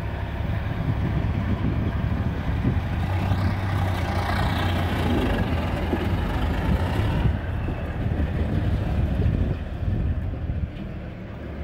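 Diesel semi-truck engine idling steadily, with wind on the microphone.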